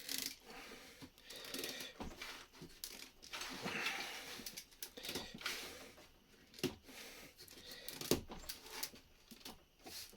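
LEGO bricks being handled and fitted: irregular plastic clicks and rattles with rustling between, the sharpest clicks about 6.5 and 8 seconds in.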